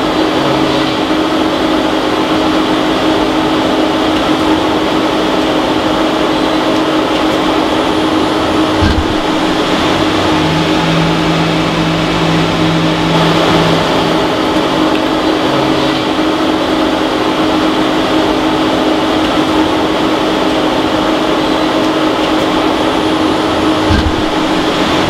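Okuma CNC turning center running and cutting a turned part under coolant spray: a steady mechanical whir with a constant hum and a lower tone that comes and goes. Two dull knocks, one about nine seconds in and one near the end.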